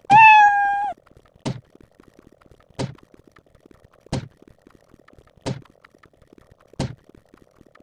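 A cat meow sound effect at the start, about a second long, followed by five laser-shot sound effects, each a quick falling zap, evenly spaced about one and a third seconds apart.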